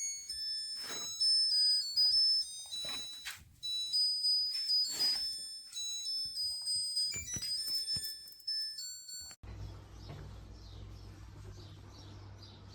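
Electronic melody of high beeps stepping from note to note, with a few knocks, cutting off suddenly about nine seconds in. A low steady hum follows.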